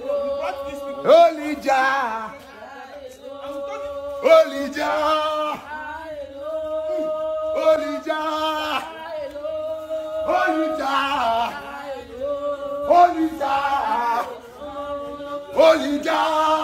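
A man chanting in long held notes, with a sharper, louder cry every three seconds or so.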